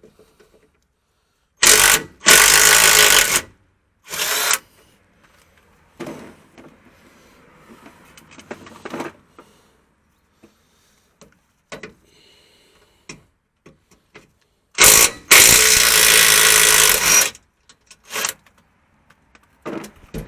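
Low-powered impact wrench hammering on a bolt in bursts: two close together about two seconds in, a short one a second later, then a longer run of about two and a half seconds near the end.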